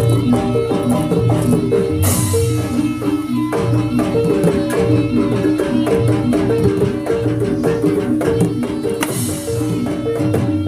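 Javanese jaranan accompaniment played live: steady drum strokes under a quick repeating pattern of metallophone notes. A cymbal-like crash comes about two seconds in and again near the end.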